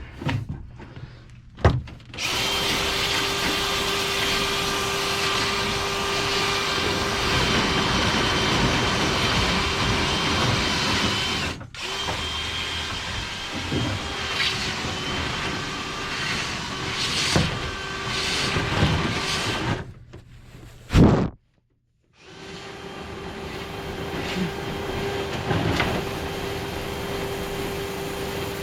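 Power drill running steadily with a constant whine, spinning a rotary cleaning brush through a dryer vent duct, with occasional knocks. It cuts off sharply just under halfway through, and again for a moment about three-quarters of the way through, then runs on.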